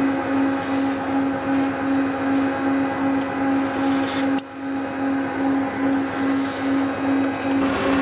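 Industrial vacuum cleaner running with a steady, pulsing hum as its hose sucks up spilled flour dust. The sound dips briefly about halfway through, and the hum shifts lower near the end.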